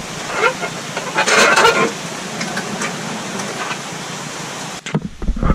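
Engine stand loaded with a Toyota 1JZ engine being wheeled across a concrete garage floor, its casters rolling and rattling over a steady hiss. The sound cuts off abruptly near the end and a couple of short knocks follow.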